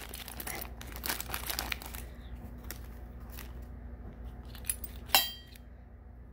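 Clear plastic coin bag crinkling as it is handled and coins are taken out, with most of the crinkling in the first two seconds. About five seconds in comes a single sharp clink with a brief metallic ring.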